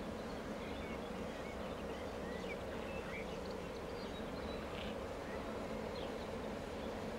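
Steady drone of freight locomotives standing at idle, with small birds chirping now and then.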